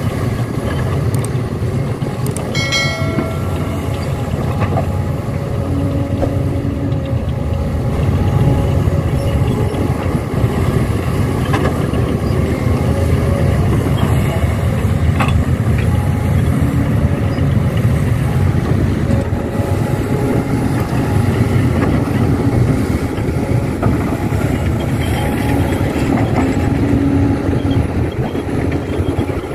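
Heavy-equipment diesel engine running steadily, with a brief high squeal about three seconds in.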